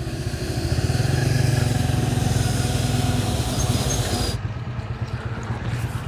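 A motor vehicle engine running close by with a fast, even pulse, swelling in loudness and then easing off; the hiss over it cuts out abruptly about four seconds in.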